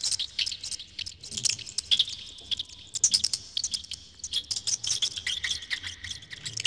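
Dwarf hamster nibbling a leafy green: a rapid, irregular run of crisp little crunching clicks.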